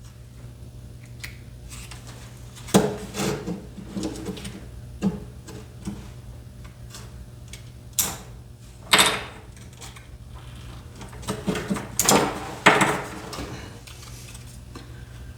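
Parts of a disassembled Xbox controller and small tools being handled on a workbench: scattered clicks, taps and clatters of hard plastic, the loudest about 8, 9 and 12 seconds in, over a steady low hum.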